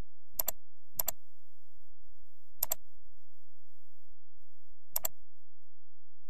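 Four computer mouse clicks, each a quick double snap of press and release, spread unevenly over several seconds.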